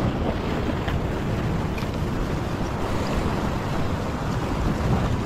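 Ocean swell surging and washing over a rock ledge, with wind noise on the microphone.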